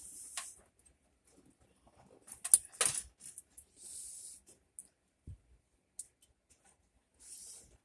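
Scattered small metallic clicks and rattles with a few short scraping hisses: the old headlight switch of a 1958 Chevy truck being worked loose and handled under the dash. The loudest run of clicks comes about two and a half to three seconds in.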